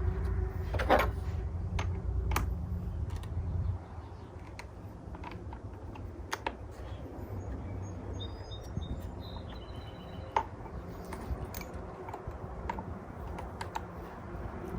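Scattered light clicks and clinks of a saw chain and bar being handled and fitted onto a chainsaw. A low steady hum underneath stops suddenly about four seconds in.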